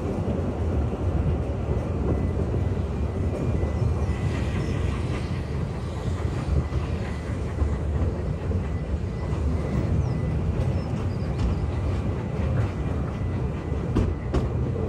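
Narrow-gauge Welsh Highland Railway train running along the track: a steady low rumble with a faint thin squeal in the first half and a few sharp clicks near the end.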